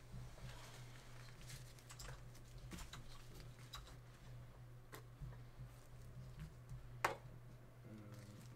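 Faint scattered clicks and light taps over a steady low hum, with one sharper click about seven seconds in.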